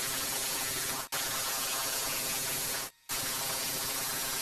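Handheld electric belt file (power file) running against dry spruce wood while shaping a slingshot: a steady hissing noise. It breaks off very briefly about a second in and again just before three seconds.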